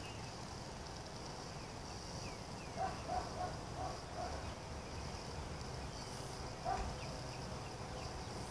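Insects buzzing steadily at a high pitch, with faint bird chirps, a quick run of about five short low calls around three to four seconds in, and one more near seven seconds.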